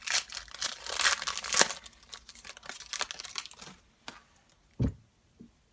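Foil trading-card pack wrapper crinkling and tearing as a pack is opened, in quick rustling strokes that die away after about four seconds. A dull thud on the table follows near the end.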